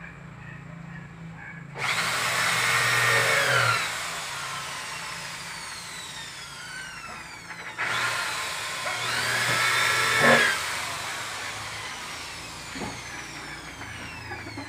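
Corded electric drill run twice, for about two to three seconds each time, at a wooden cabinet door. Each run is a whine that climbs, holds and then drops, and a falling whine trails after each one.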